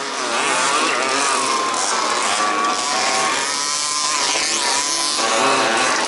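Several 1/5-scale two-stroke petrol RC buggy engines racing around the track, their pitches rising and falling and overlapping as they rev up and ease off.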